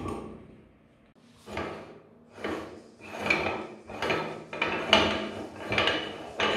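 Electric meat grinder's motor fading out as it runs down after being switched off, then a hand scraping ground ice cream off the grinder's cutting plate in repeated rubbing strokes, one or two a second.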